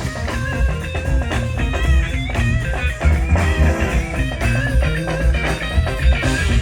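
Electric guitar solo over a blues-rock band, with a steady bass and drum beat.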